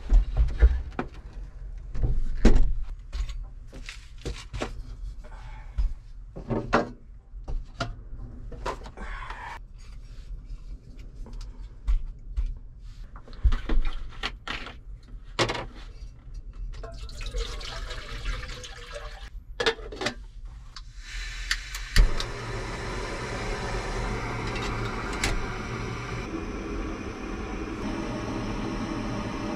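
Camp cookware and gear being handled: a run of clicks, knocks and clatter, then water being poured. About two-thirds of the way in, a steady rushing hiss starts abruptly and keeps going.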